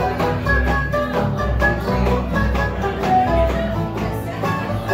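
Live acoustic bluegrass band playing a quick tune: mandolin picking fast notes over strummed acoustic guitar and a low upright bass line.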